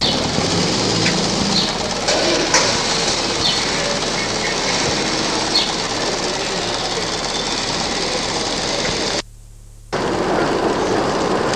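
Steady hiss-like background noise with a few faint ticks, broken by a sudden dropout of under a second about nine seconds in.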